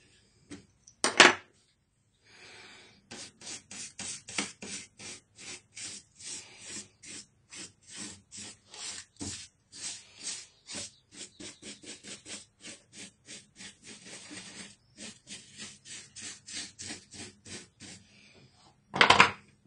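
Paint brush bristles sweeping dust off a netbook's plastic chassis and board, quick rubbing strokes at about three a second. A louder knock comes about a second in, and another near the end.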